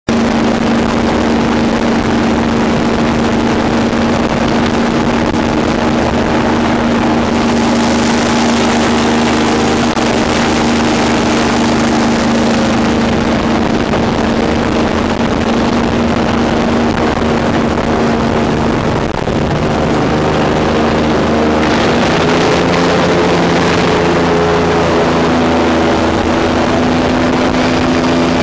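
Airboat's engine and air propeller running loud and steady at speed, the engine note shifting about twenty seconds in. Stretches of rushing hiss come and go over it.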